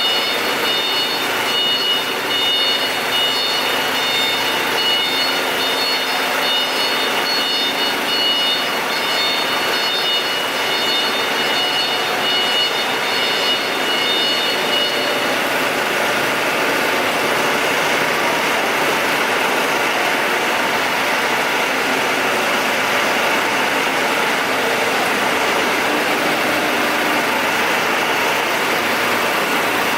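Diesel generator set engine running steadily under a constant load. A steady high whine rides over it for the first half and stops about halfway through, leaving an even, unchanging engine noise.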